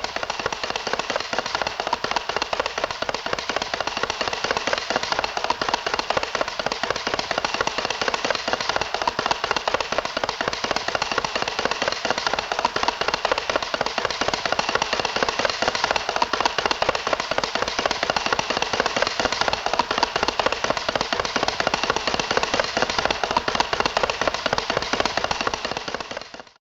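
A dense, rapid, continuous clatter of clicks and rattles, steady throughout and fading out at the end.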